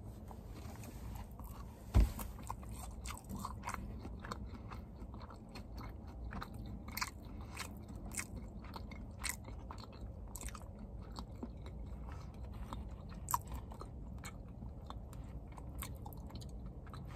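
A person chewing a mouthful of deep-fried salmon sushi roll close to the microphone, with many small wet mouth clicks. A single sharp knock about two seconds in is the loudest sound.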